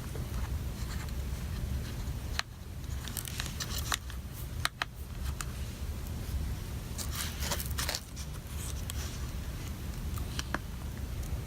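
Small screwdriver backing a long screw out of a MacBook Pro's case, with faint scattered clicks and scrapes of the tool and screw over a steady low hum.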